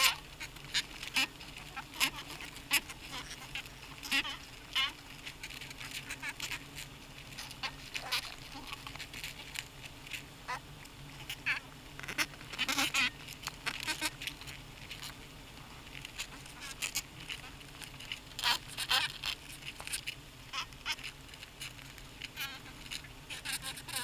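Heterotrigona itama stingless bees moving right at the camera inside the hive: irregular short buzzes and scratches, with louder clusters about 4, 13 and 19 seconds in.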